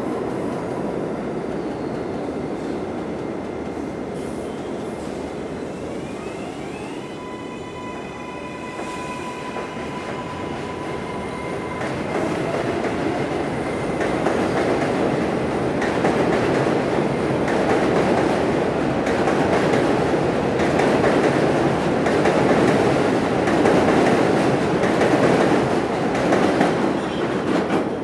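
An R188 subway train pulling out of the station. Its propulsion gives a whine of several tones that steps up in pitch about seven seconds in as it starts moving. Then the wheels run on the elevated track with a rising rumble that grows louder as it gains speed.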